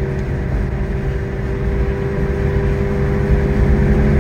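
Steady car engine drone and road noise while cruising at highway speed, without revving.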